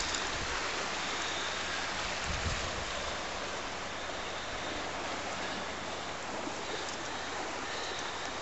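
Steady rushing of wind and sea surf, with a low gust of wind on the microphone about two and a half seconds in.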